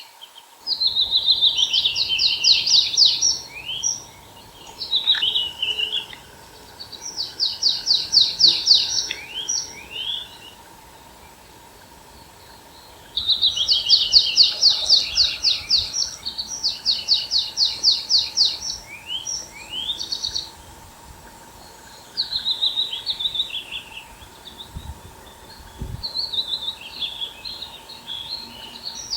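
A songbird singing in a forest, repeating fast trilled phrases of two to three seconds with short pauses between them, about eight songs in all.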